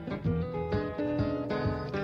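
Background music: an acoustic guitar playing plucked and strummed chords at an even pace.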